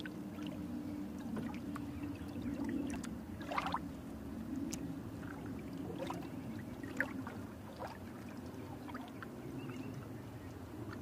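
Surf washing onto a beach: a steady rush of waves with scattered small splashes and clicks.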